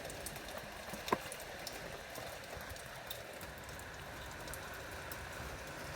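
Steady rain falling, with many scattered drops ticking close by and one sharper drip about a second in.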